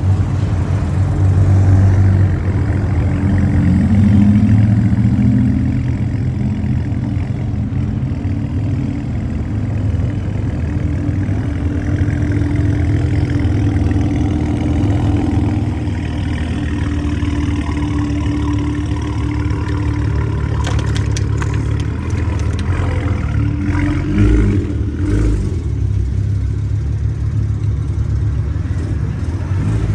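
Loud performance car engines idling with a steady low note, swelling a little in the first few seconds and with a short sharp rise about 24 seconds in.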